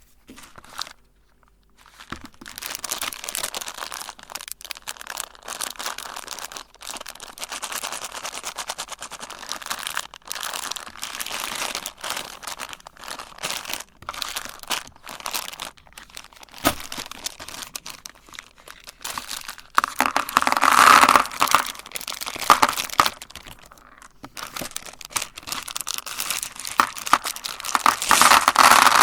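M&M candies crunching and crackling as a meat grinder crushes their hard sugar shells, a dense irregular crackle that gets louder in spells.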